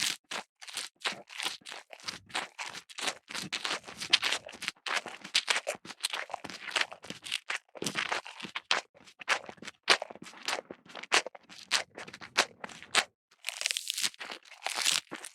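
Repeated irregular crunching and crackling, several short crunches a second, with a brief pause near the end.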